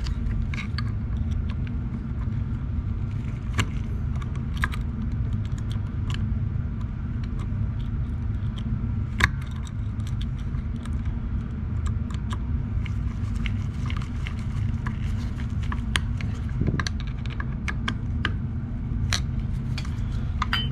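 Scattered small metallic clicks and taps of a screwdriver and carburetor parts as a part is fitted down inside an aluminium carburetor body, over a steady low hum.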